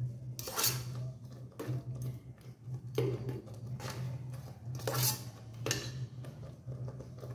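Perforated steel ladle stirring vermicelli and dissolving jaggery in an electric rice cooker's aluminium pot. It scrapes, and clinks against the pot's side and rim about five times.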